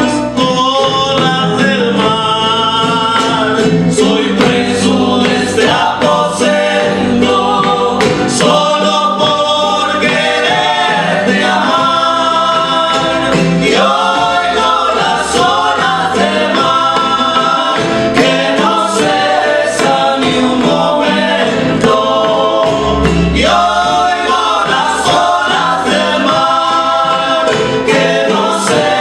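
Son jarocho ensemble playing live: strummed jaranas and requinto with bass and percussion, under several voices singing a verse together.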